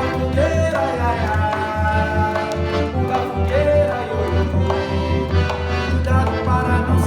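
Festa junina music: an accordion plays the melody over a steady low beat.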